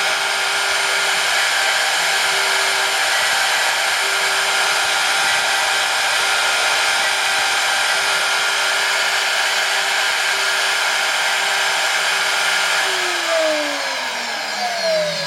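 Small high-speed spindle motor of a DIY CNC PCB drill running steadily with a whine, then spinning down near the end, its pitch falling.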